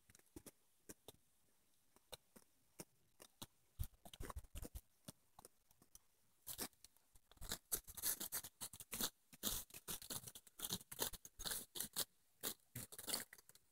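Oberian goats browsing Scotch broom: stems snapping and tearing as they bite, with crisp chewing. A few scattered clicks at first, then a dense run of crackling snaps from about halfway through.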